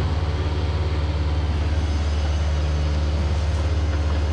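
Diesel engines of Takeuchi compact equipment, a TB240 mini excavator and a track loader, running steadily. A low, even drone that holds one pitch.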